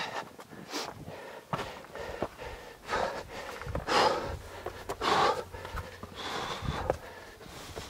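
A hiker breathing hard on a steep rocky ascent, with loud breaths about once a second and footsteps scuffing on rock in between.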